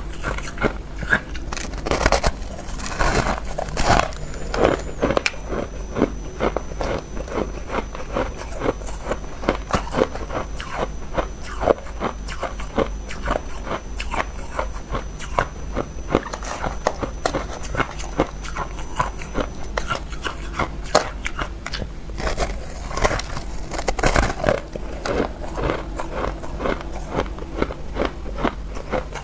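A person biting and chewing crushed ice: a rapid run of crisp crunches, several a second, with heavier bouts of crunching about two to four seconds in and again around twenty-three seconds in.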